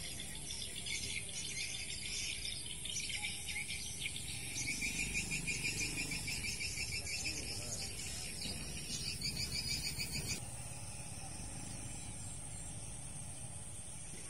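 Outdoor insect and bird chirping: fast pulsed chirps over a steady high insect drone. The chirping breaks off suddenly about ten seconds in, leaving the steady drone and a low rumble.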